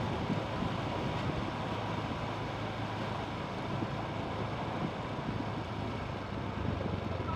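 Motorcycle engine running steadily at low riding speed, mixed with wind on the microphone and street traffic noise.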